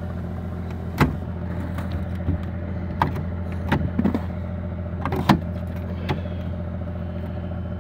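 An engine idling steadily in the background, with a few sharp clicks and knocks of metal and ice close by.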